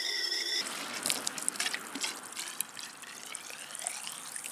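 Black powder granules being poured, a crackly trickling hiss with many small ticks that starts about half a second in.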